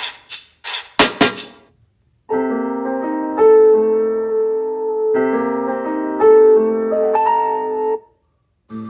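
A quick run of drum hits that stops before two seconds in, then two held piano chords, each sounding for almost three seconds, with a short silence after them.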